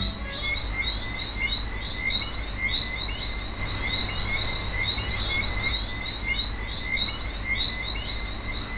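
Chorus of frogs calling: many short, high chirps overlapping, several a second, over a low steady rumble.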